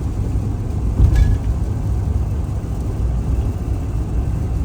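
Steady low rumble of road and engine noise from a truck driving on the highway, heard from inside the cab, with a brief knock about a second in.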